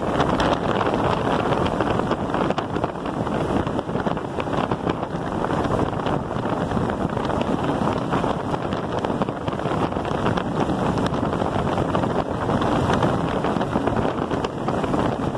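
Steady wind noise buffeting the microphone of a camera riding on an electric bike, mixed with a constant crackle of the tyres rolling over a loose gravel road.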